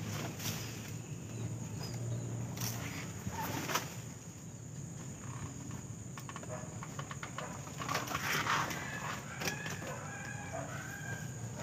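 Banana leaves rustling and snapping as they are pushed and pulled close to the microphone, with a burst of rustling about eight seconds in. Chickens cluck in the background.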